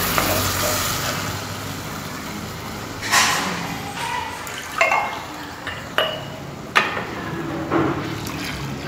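Several separate clinks and knocks of cookware being handled, roughly a second apart, some with a short metallic ring, over a low hum that fades out early on.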